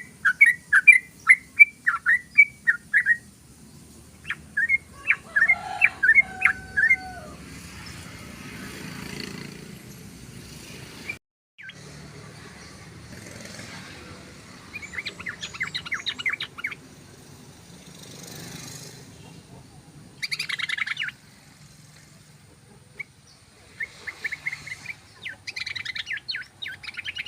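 Yellow-vented bulbul (trucukan) singing in several bursts of rapid, bubbling, repeated notes, with quieter gaps between the phrases.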